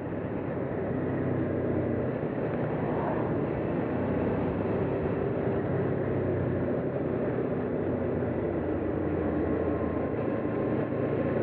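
Honda VFR800's V4 engine running at a steady road pace, mixed with a steady rush of wind and road noise on the bike-mounted microphone. It grows a little louder over the first couple of seconds, then holds steady.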